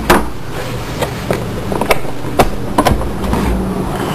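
Sharp clicks and knocks of the air filter housing's clips being pulled up and released, about six or seven at irregular intervals, over a steady low hum.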